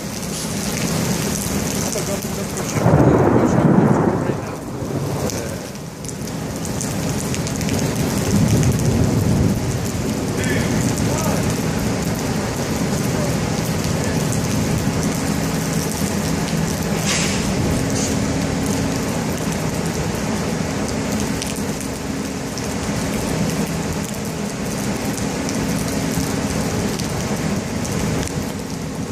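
Heavy rain falling steadily in a severe thunderstorm. A loud peal of thunder breaks about three seconds in, and a lower, softer rumble of thunder follows around eight to ten seconds in.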